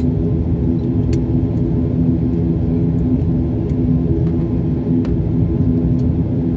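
Airliner cabin noise while taxiing on the ground: a steady low rumble of engines and wheels with a constant hum of a few steady tones and a few faint ticks.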